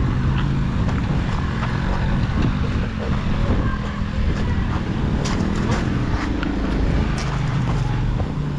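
Motorcycle engine running steadily with a low hum and rumble, with scattered knocks and rattles as the bike rides over a rough, rocky track.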